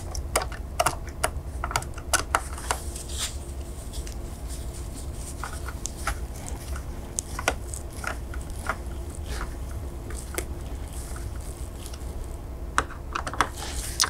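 Irregular sharp clicks and light taps of a Torx T20 screwdriver tightening the captive screws on an AMD SP3 CPU socket's retention frame, handled with gloved hands. The clicks come thickest in the first few seconds and again shortly before the end, over a low steady hum.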